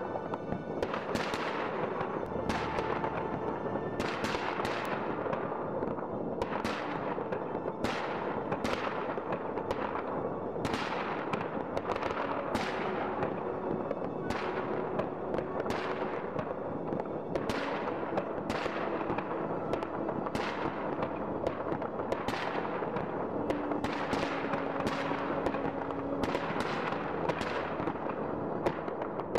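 Many fireworks going off across a city at once: a continuous crackle and rumble of distant bangs, with a sharper bang about once a second, each trailing off in echo.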